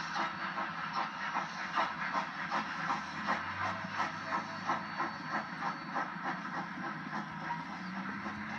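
Steam exhaust of narrow-gauge locomotive No. 463, a Rio Grande K-27 2-8-2 Mikado, chuffing in an even rhythm of about three beats a second over a steady hiss as it works along the track. The beats fade out near the end.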